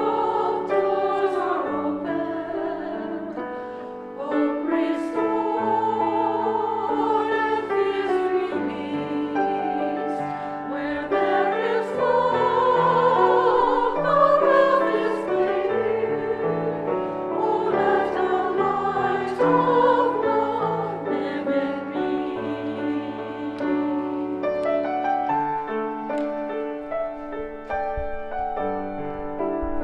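Sacred song sung with piano accompaniment, the voice holding long notes with vibrato.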